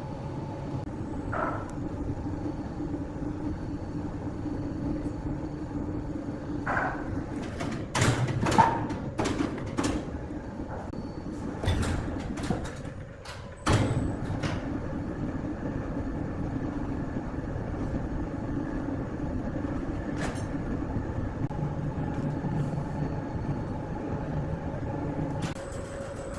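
Large wood saw machinery running steadily with a hum and rumble, broken about a third of the way in by a burst of loud knocks and clatters as wood is handled or cut; the running dips briefly and comes back suddenly.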